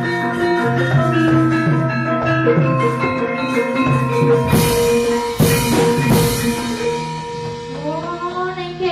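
Javanese gamelan playing: held bronze metallophone tones under a stepwise melody of shorter notes, with three loud clashing strikes about halfway through. A voice comes in with gliding pitch near the end.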